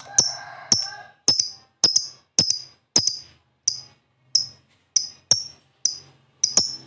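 Lovebird giving a series of sharp, shrill call notes, about two a second.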